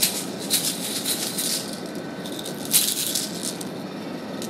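Small hard objects rattling inside a hand-held container as it is shaken, in three bursts: a brief one at the start, a longer one of about a second from half a second in, and another a little before the three-second mark.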